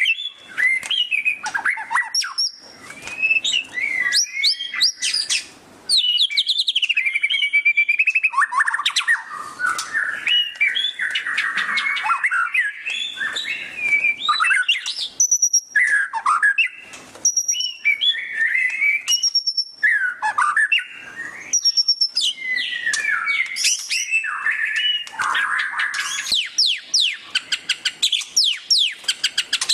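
White-rumped shama (murai batu) singing loudly: a nearly continuous, varied string of clear whistles, pitch glides and fast chattering trills (the 'ngeriwik' style), broken by only brief pauses.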